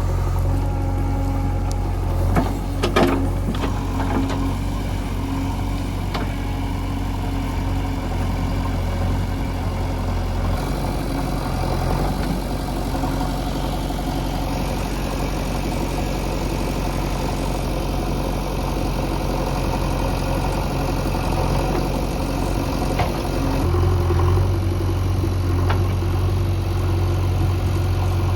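A heavy diesel engine idling steadily, with a few sharp clanks about three seconds in. The engine note changes abruptly twice.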